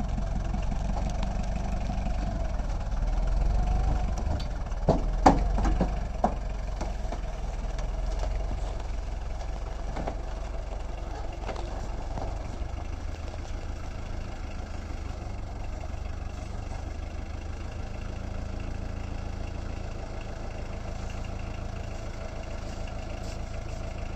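1994 Ford diesel tractor engine idling steadily, with a few sharp knocks about five seconds in.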